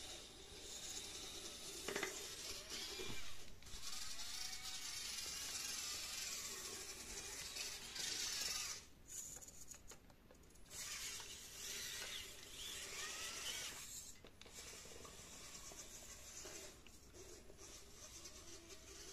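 Electric drive motors and plastic gearing of a small 3D-printed RC car whining, the pitch rising and falling as the throttle changes, with short stops about nine and fourteen seconds in.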